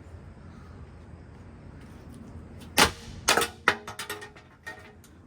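Ceiling fan parts being smashed: after a quiet start, one loud sharp hit a little under three seconds in, followed by a quick run of smaller clanging and clinking hits, some ringing briefly.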